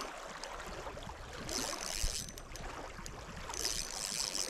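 Small waves lapping and washing on a shallow gravel lake shore, a soft wash swelling about every two seconds over a steady hiss of moving water.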